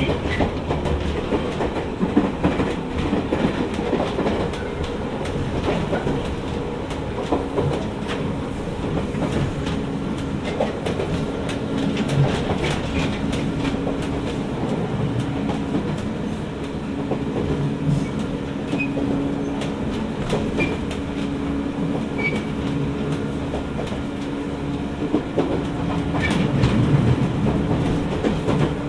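Jōmō Electric Railway 700-series electric train (ex-Keiō 3000 series) running between stations: wheels clicking over rail joints over a steady hum and rumble. The clatter grows louder near the end.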